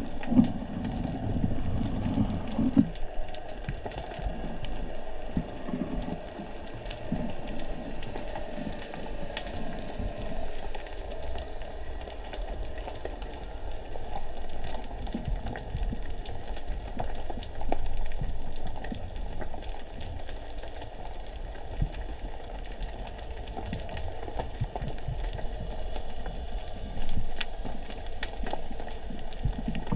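Underwater reef ambience: constant fine crackling with scattered sharp clicks over a low rush of water, the rush louder for the first few seconds.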